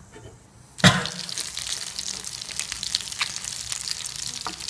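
Nem (Vietnamese spring rolls) going into hot cooking oil in a pan: a sudden loud burst of sizzle about a second in, then a steady crackling sizzle with many sharp pops as they start to fry.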